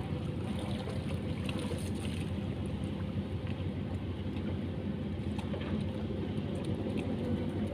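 Steady low drone of a distant motor engine, with a few faint ticks over it.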